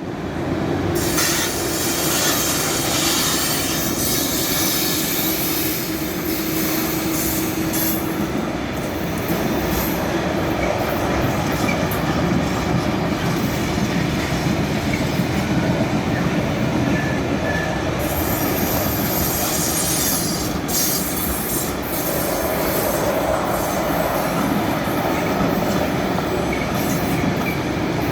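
Mixed freight train led by an ÖBB Taurus electric locomotive and a class 1144 locomotive rolling through a station, the wagons running steadily over the rails with stretches of wheel squeal and clickety-clack. A steady hum sounds for the first several seconds.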